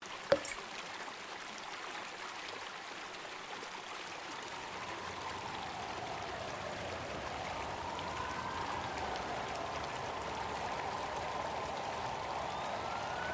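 A single water drop plops just after the start, with a short falling ring. Then a steady wash of water noise, like rain or running water, grows slowly louder, with faint wavering tones gliding up and down from about five seconds in.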